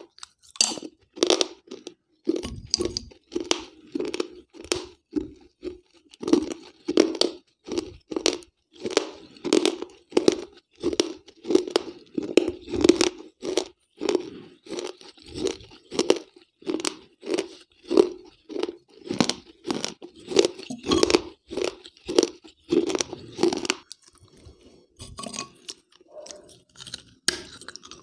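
Pieces of a wet terracotta clay gullak (piggy bank) being bitten and chewed close to a lapel microphone: a fast run of sharp crunches, about two a second, easing to quieter chewing near the end before one more crunch.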